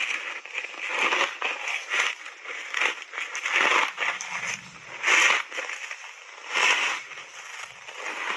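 Crunchy foam reshape ice coated in thick matcha powder being bitten and chewed close to a lapel microphone: a string of irregular crunches, the loudest about five and seven seconds in.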